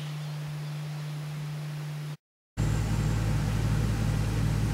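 Steady low hum with faint hiss, cut off abruptly about two seconds in, then a louder, steady low rumble with hum.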